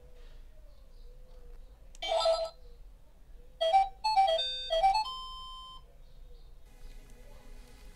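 Children's toy learning laptop sounding electronic game beeps through its small speaker: a short beep about two seconds in, then a quick run of beeps ending in a held tone. Faint electronic music starts near the end.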